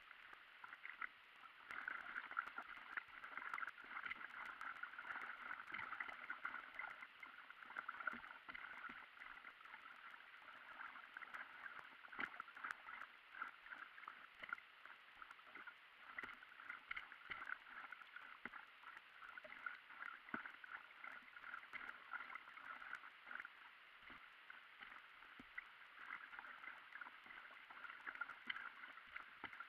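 Faint water splashing and gurgling from paddle strokes and an inflatable stand-up paddleboard gliding on a calm river, sped up into a dense crackle of tiny splashes.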